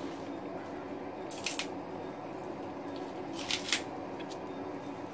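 Pot of hot-pot broth coming to the boil: a few short hissing bursts of bubbling, about a second and a half in and again near three and a half seconds, over a steady low hum.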